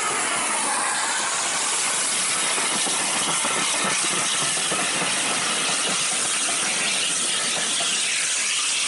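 LSWR T3 class 4-4-0 steam locomotive No. 563 and its train passing close by, with a steady loud hiss of steam and the rattle of carriage wheels on the rails.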